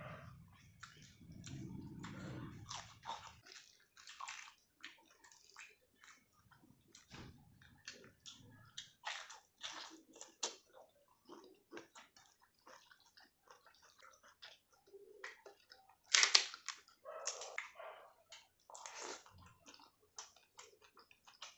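Close-miked chewing of a mouthful of rice and dal eaten by hand: a run of irregular wet mouth clicks and chews, with one louder chew about sixteen seconds in.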